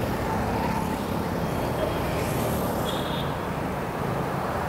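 Steady motor-vehicle noise, an even rumble at a constant level.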